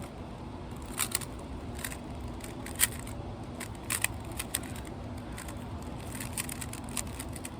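Rubik's cube being turned quickly, its plastic layers clicking in irregular clusters, over a steady low rumble of wind on the microphone.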